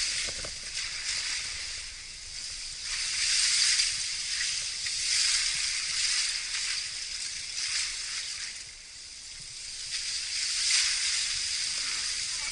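Water sloshing and floating shards of broken spring ice rustling against each other as a person in an immersion suit moves through them, swelling and fading every couple of seconds.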